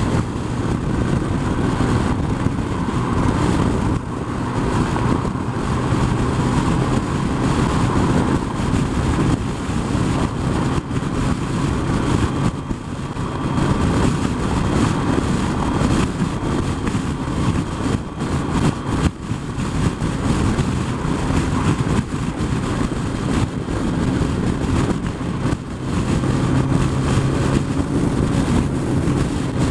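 Motorcycle cruising at freeway speed: a steady engine note under a constant rush of wind and road noise.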